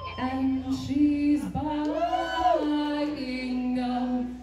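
Woman singing lead vocals through a microphone in a rock cover band, with little accompaniment under her. She holds long notes, with a rise and fall in pitch about halfway through.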